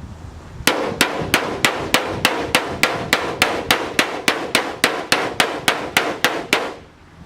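Hammer striking sheet metal in a steady run of about twenty blows, roughly three a second, each with a short metallic ring. The blows stop near the end. It is the sound of bending and folding a sheet-metal piece over by hand.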